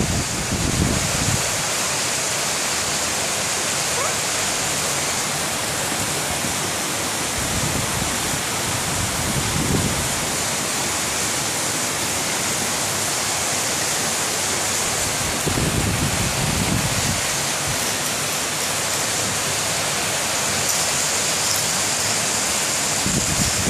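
Steady hiss of heavy rain, unchanging throughout, with a few brief low sounds breaking through it about ten seconds in, around sixteen seconds in and near the end.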